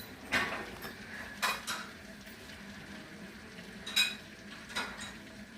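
A handful of sharp, clinking knocks, five in all, the clearest about four seconds in, over a faint steady hiss.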